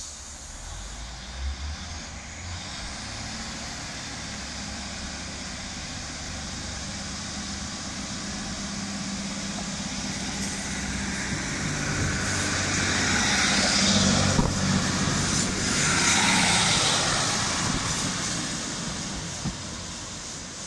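Class 156 diesel multiple unit pulling away from the platform: a short hiss of air near the start, then its diesel engines running under power, growing louder as the train draws past with the sound of wheels on the rails, and fading as it moves off down the line.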